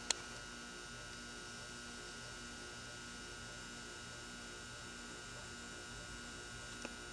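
Faint steady electrical hum with a faint pulsing low tone, broken by a short click right at the start and a fainter click near the end.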